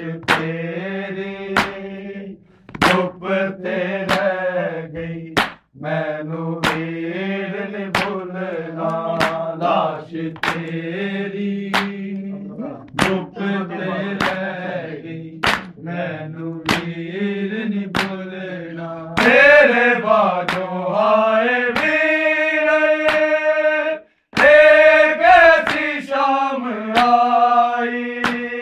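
Men reciting a Punjabi noha (Shia mourning lament) in a chanted melody, kept in time by sharp matam beats, hands striking the chest, about once a second. The voices grow louder and higher about two-thirds of the way through.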